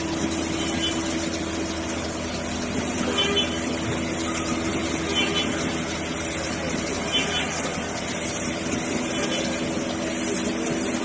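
Two-head 5-axis CNC wood router running steadily, a continuous machine hum with steady tones and a faint high chirp about every two seconds.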